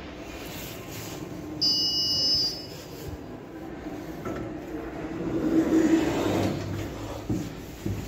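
Passenger lift arrival chime: a bright electronic tone sounds once for nearly a second, about one and a half seconds in, over a steady low hum from the lift. Near six seconds a louder rumble swells and fades as the sliding doors and lift machinery work.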